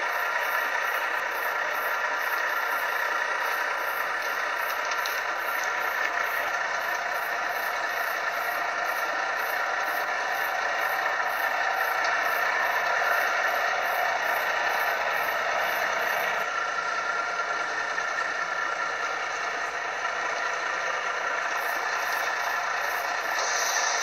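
Steady running noise of a train, a continuous rumble and rattle heard from aboard.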